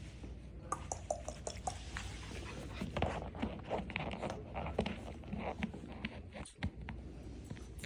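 Nine-week-old Biewer Terrier puppies playing: scuffling and scratching, with many small clicks and scrapes.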